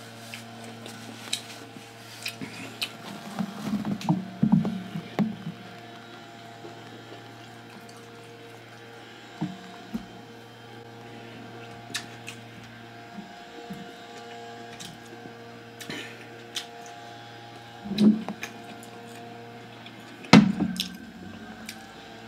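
Close-up eating sounds: chewing, and seafood and shells handled by hand, with scattered soft clicks and crunches and a louder clunk about twenty seconds in. A steady low hum sits underneath and stops with that clunk.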